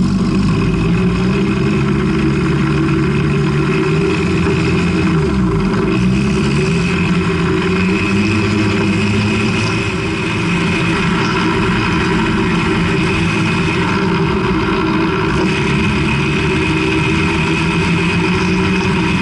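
Sherp amphibious ATV's diesel engine running steadily under load as it drives over snow, heard from beneath the hull. Its pitch dips briefly about five seconds in.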